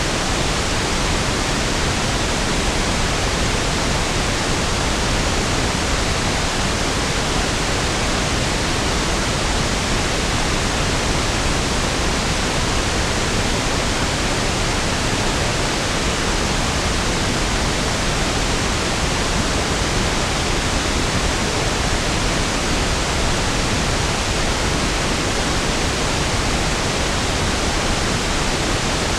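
Steady pink noise: an even, constant hiss with equal energy per octave, smoother and deeper than white noise, without any change.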